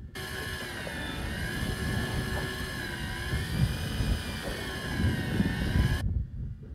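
Electric fishing reel motor winding in a hooked fish: a whine whose pitch wavers with the load, starting abruptly and cutting off about six seconds in, over a low rumble of wind and water.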